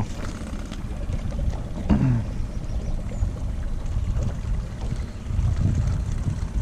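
Lake water lapping and splashing at a kayak, with wind rumbling on the microphone. A brief low falling voice sound comes about two seconds in.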